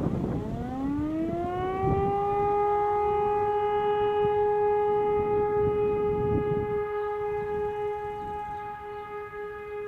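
Outdoor fire-alarm siren winding up from a low pitch over about two seconds, then holding one steady, loud tone. It is the siren alarm calling out the volunteer fire brigade.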